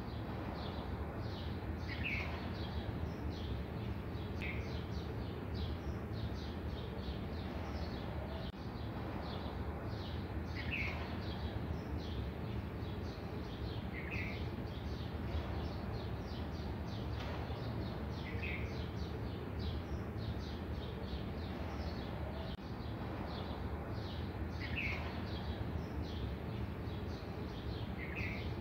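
Birds chirping repeatedly, with a louder short call every few seconds, over a steady background hum.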